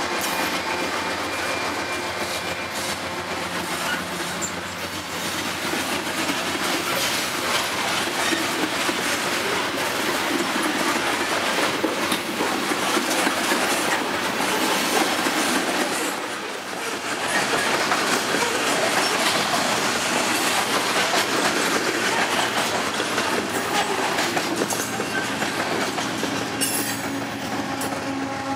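Loaded coal train rolling past at close range, the steel wheels of the hopper cars clattering steadily on the rails. The diesel of the mid-train remote locomotive, a CP AC4400CW, is heard passing at the start. The rear remote locomotive, a CP ES44AC, comes up near the end.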